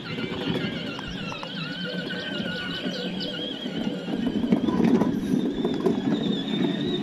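A child's battery-powered ride-on jeep running across grass: a steady whirring from its electric motor and gears, louder from about four seconds in, with a high, wavering tone above it.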